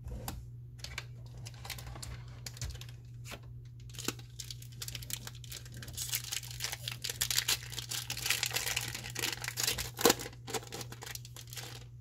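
A Magic: The Gathering booster pack's foil wrapper being torn open and crinkled. The rustling is densest in the second half, with a sharp crackle about ten seconds in.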